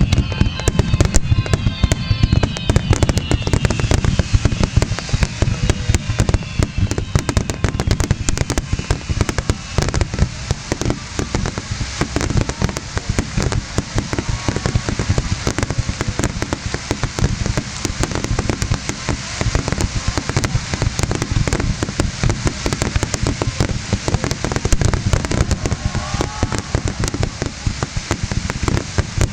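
Fireworks finale: a dense, continuous barrage of aerial shells bursting, with deep booms and crackling reports packed so closely that they merge into one unbroken rumble. A few falling whistles sound near the start.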